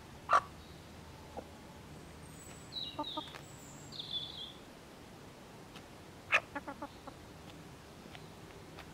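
Hens clucking: one sharp cluck just after the start and a quick run of four or five clucks about six seconds in. A small wild bird chirps in the background around three to four seconds in.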